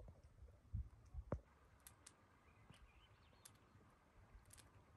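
Near silence with a few soft thumps about a second in, then scattered faint clicks.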